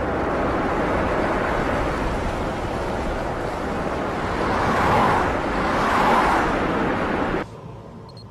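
Road traffic noise, with cars driving by: two passing swells about five and six seconds in, then it cuts off abruptly.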